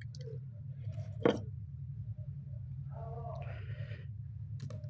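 Quiet room with a low steady hum, a single sharp click a little over a second in, and a brief faint muffled rustle about three seconds in.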